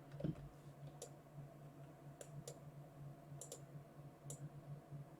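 Faint scattered clicks of computer input while drawing, about six single clicks at uneven spacing, over a steady low hum.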